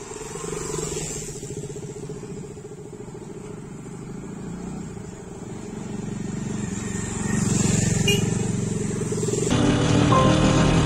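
Motorcycles ride up and pass close by, their engine sound growing louder as they near. About two thirds of the way through, background music comes in abruptly.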